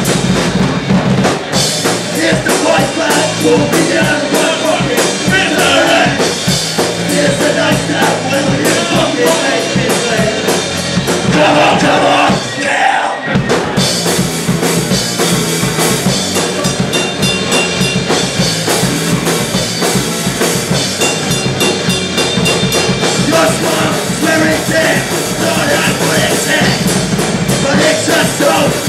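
Punk rock band playing live: electric guitars, bass and drum kit with a singer, loud and dense, the low end dropping out briefly about halfway through.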